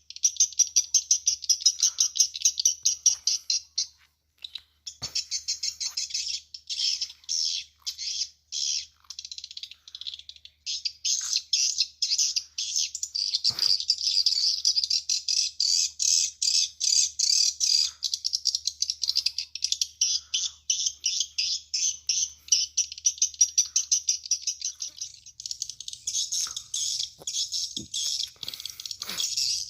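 Swiftlet calls played through a swiftlet house's tweeter speakers: dense, rapid trains of high chirps with short breaks, over a faint low hum.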